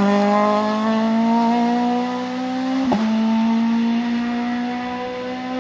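Peugeot 106 S16 rally car's 1.6-litre 16-valve four-cylinder engine held at high revs under full throttle as the car drives away, its pitch climbing steadily. There is a short crack about three seconds in, and the engine fades slowly as the car moves off.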